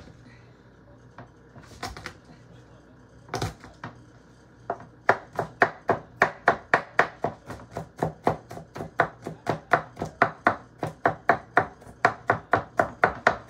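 Kitchen knife mincing garlic cloves on a wooden cutting board. A few separate knocks come first, then a quick, steady run of chops at about four a second.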